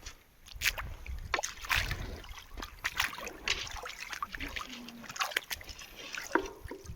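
Shallow river water sloshing and splashing, with irregular sharp clicks of stones on a gravel riverbed, as of someone wading and picking through the stones.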